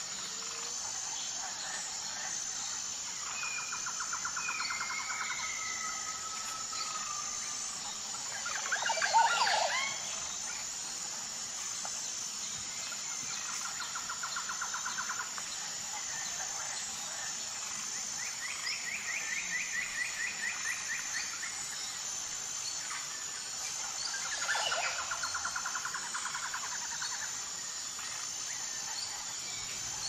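Birdsong over a steady, high insect chorus. Birds give rapid trills of about two seconds each, every several seconds, with a louder burst of chirps about nine seconds in.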